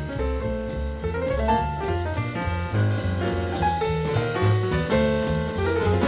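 Live jazz piano trio playing: piano over a walking double bass line and drum kit with cymbals, heard from an FM broadcast taped on cassette.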